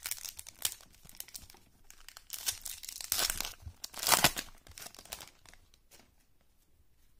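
Foil wrapper of a 1997 Playoff Contenders football card pack crinkling and tearing open, with a run of crackling rips that is loudest about four seconds in, then dies down to a few faint rustles.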